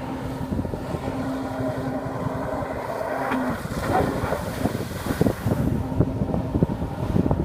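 Jet ski engine running at a steady note, with wind buffeting the microphone. From about four seconds in, irregular thumps and knocks come through.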